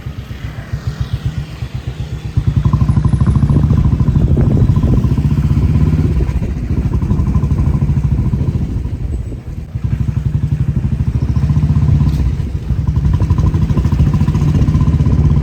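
Engine of a moving vehicle running with a steady, pulsing note, easing off in the first couple of seconds and again briefly about ten seconds in.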